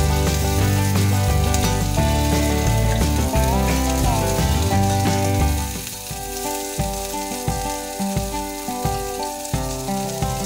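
Chicken thighs sizzling as they sear in hot sunflower oil in a cast-iron skillet, over background music whose bass drops away about halfway through.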